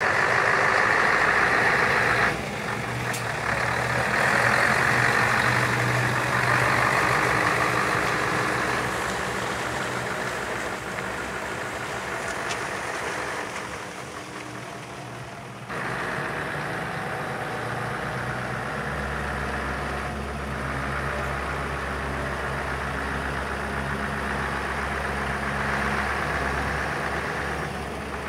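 Scania R144 hooklift truck's 14-litre V8 diesel running as the truck drives off and then reverses, its note dropping as it moves away and rising again as it comes back. The sound changes abruptly a little past halfway.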